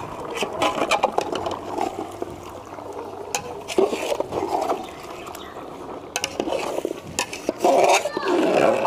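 Metal spatula stirring chicken pieces in a large aluminium pot, with irregular knocks and scrapes against the pot's sides over a wet, sloshing bed of sound. The stirring is loudest near the end.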